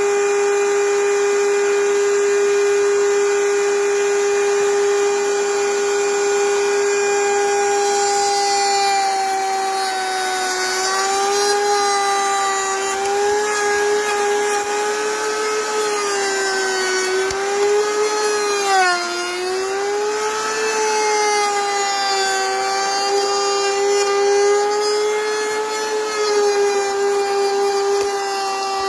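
High-speed electric power tool motor running with a steady whine. After several seconds its pitch starts to sag and waver repeatedly as the tool takes load cutting wood.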